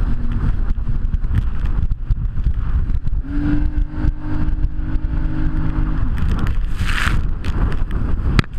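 Jet ski engine running under way, mixed with heavy wind buffeting on the microphone. A steady engine tone stands out from about three to six seconds in, and a short hiss follows about a second later.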